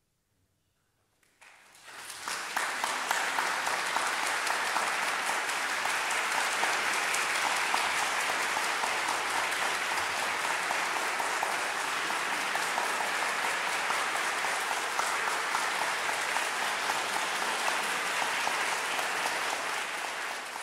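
Concert audience applauding: silence at first, then clapping breaks out about a second and a half in, builds within a second and holds steady, greeting the end of the performance.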